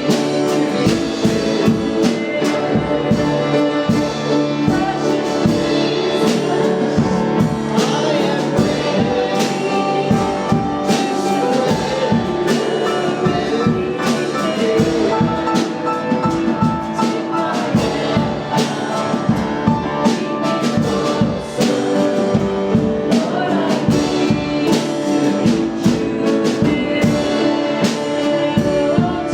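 Worship band music for a slow gospel song, with a drum kit keeping a steady beat under held chords.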